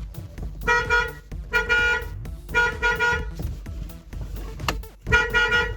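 Lada Niva's horn sounding in short blasts, about four or five in a few seconds, each a steady buzzy tone of about half a second. The horn works again after its broken steering-wheel contact was replaced with a homemade spring contact.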